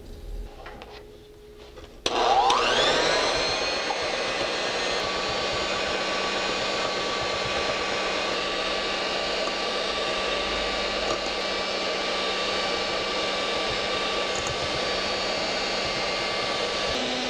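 Handheld electric mixer switched on about two seconds in, its motor whining up to speed and then running steadily as its wire beaters whip heavy cream and sugar. The pitch shifts slightly near the end.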